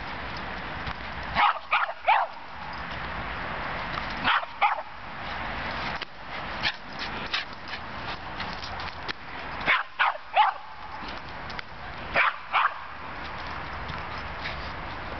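Small pinscher barking in play: short, high yapping barks in quick clusters of two to four, four times over, with a steady hiss between.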